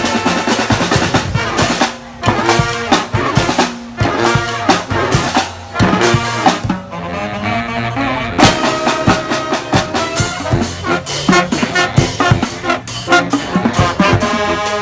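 Live street brass band playing: sustained horn lines over a drum beat with sharp, repeated drum hits. The drum hits briefly thin out about halfway through, then come back.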